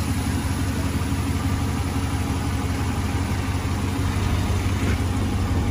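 2021 Ram 1500 pickup's engine idling steadily, heard from beneath the truck near its exhaust, a low even hum with no change in revs.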